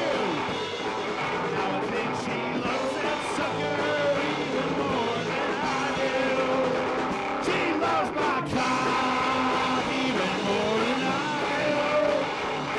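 A rock band playing a song, with a voice singing over the instruments. It is a lo-fi recording from a single microphone lying on the floor, taped onto cassette.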